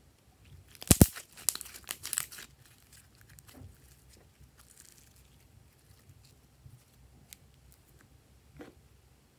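Slime being stretched and squeezed between the fingers, crackling and popping as trapped air breaks through. One loud sharp pop comes about a second in, with a run of crackles just after it and a few softer pops later.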